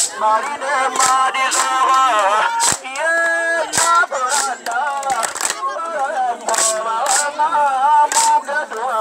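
Voices singing a melodic chant, with sharp percussive hits keeping a beat about every half second.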